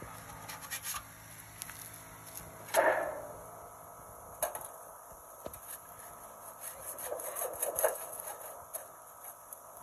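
Roofing work on wood: scattered knocks and some scraping, with one sharp, loud bang about three seconds in and a cluster of knocks near the end.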